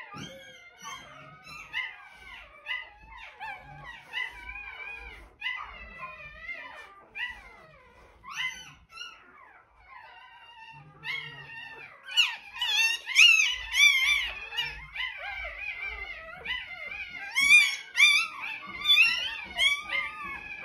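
Several newborn German Shorthaired Pointer puppies whining and crying in high, wavering squeals that overlap one another, growing louder and more frantic about twelve seconds in. The puppies are hungry and calling for their absent mother.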